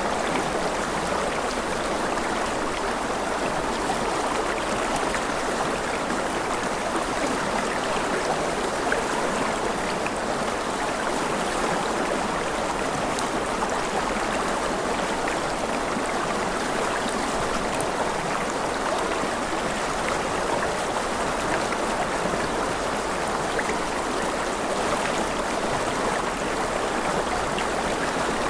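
Steady, unbroken rush of flowing water, like a stream, with faint scattered splashes and trickles.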